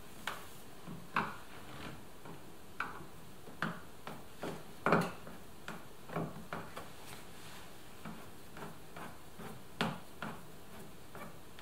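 Irregular plastic clicks and knocks from a Toyota RAV4 door trim panel being worked loose by hand, the loudest about five seconds in and again near ten seconds.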